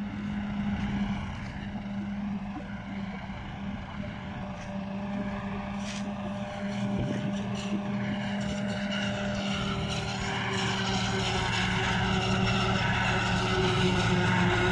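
Landini 105 Power tractor's six-cylinder engine running steadily under heavy load as it drives a Çelmak four-row forage harvester chopping silage corn, with the chopper's whir over the engine. It grows louder as the machine comes closer. The engine is working hard, which the owner says wears on its life, though it still keeps cutting.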